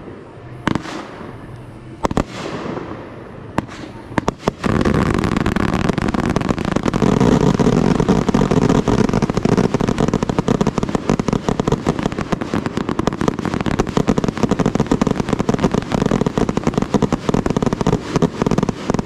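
Fireworks going off: a few separate loud bangs, then from about five seconds in a dense, continuous barrage of rapid bangs and crackling.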